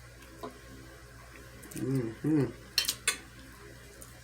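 Two brief hummed vocal sounds, then two sharp clinks of cutlery against a dish about three seconds in.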